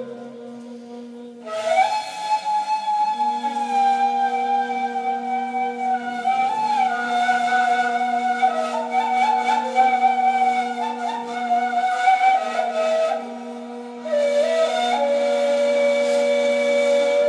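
Two neys, end-blown reed flutes, improvising together: one holds a low, steady drone while the other plays a breathy, ornamented melody above it. The melody enters about a second and a half in, breaks off near the thirteen-second mark and resumes a second later.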